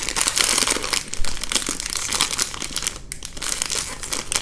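Blind-bag toy packaging crinkling as it is torn open and handled: a dense run of crackles with a brief pause about three seconds in.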